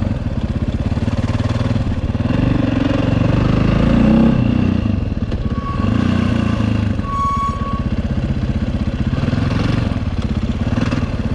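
2011 KTM 530 EXC's single-cylinder four-stroke engine pulsing under a rider trying a wheelie, swelling in revs about four seconds in and then easing back. A short high tone sounds twice near the middle.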